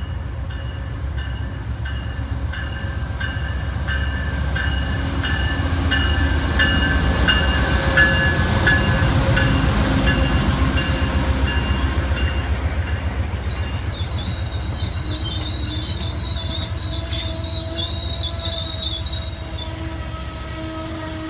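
Amtrak GE P42DC diesel locomotive rumbling past as the train pulls into the station, loudest as the locomotive goes by, with a bell ringing in a steady rhythm through the first half. After it come the passenger coaches rolling by, with a high wheel squeal for several seconds near the end.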